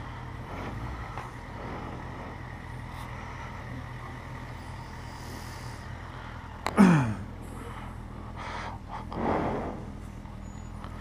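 Motorcycle engine idling steadily at a standstill. About seven seconds in, a short, loud sound drops quickly in pitch, and a softer swell follows near nine seconds.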